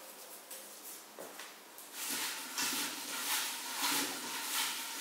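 A hand stirring folded paper slips in a glass bowl: a loud, crackly rustling in repeated strokes from about two seconds in, after quieter paper handling.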